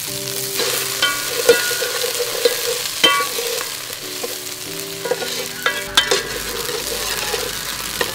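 Pounded yellow herb paste sizzling as it fries in hot oil in an aluminium pot, stirred with a metal ladle that clinks and scrapes against the pot several times, each clink ringing briefly.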